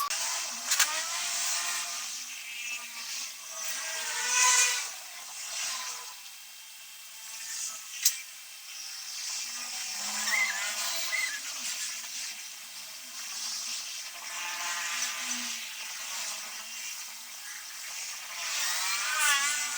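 A small power tool running in spells, its high whine rising and falling in pitch as the load changes, with a sharp click about eight seconds in.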